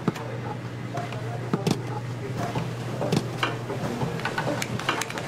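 Stainless-steel kitchen pans and utensils clattering, with several sharp metal knocks, over a steady low hum.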